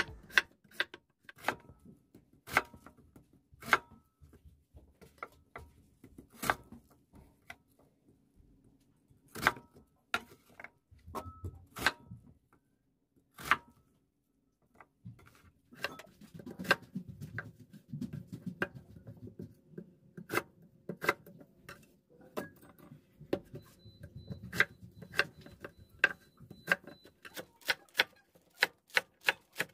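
Kitchen knife cutting through a Korean radish and knocking on a wooden cutting board, sharp single knocks a second or more apart at first. In the second half the chopping comes faster and more evenly, several strikes a second, as green onions are chopped.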